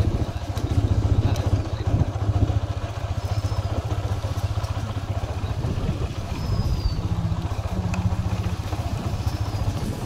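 A small engine running steadily with a fast even pulse. A few faint bird chirps sound high above it.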